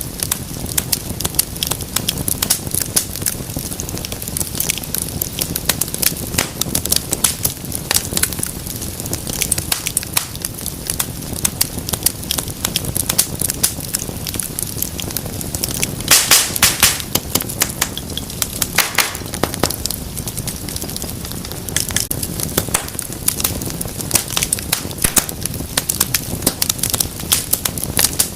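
Wood fire in a fireplace crackling steadily, with sharp pops and snaps over a low rush of flame; about halfway through comes a quick flurry of loud pops, and another shortly after.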